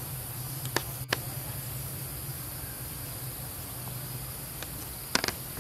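Forest ambience: a steady high-pitched insect drone over a low hum, broken by sharp clicks about a second in and a quick pair near the end.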